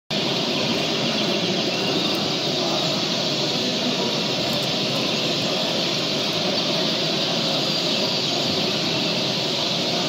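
Steady, even rushing noise at a constant level, with no canary song.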